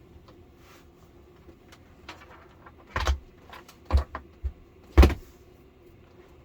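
A cluster of knocks and clunks about three to five seconds in, the last the loudest, over a faint steady hum.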